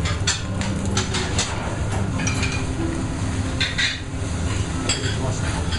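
Clatter and crackle at a charcoal yakitori grill: scattered short clinks and pops over a steady low rumble.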